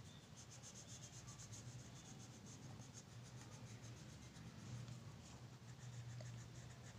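Faint, quick back-and-forth scratching of red colouring strokes on a paper worksheet, several strokes a second, thinning out in the second half.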